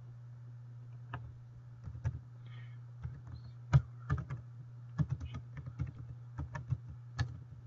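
Typing on a computer keyboard: irregular key clicks, some in quick runs, over a steady low hum.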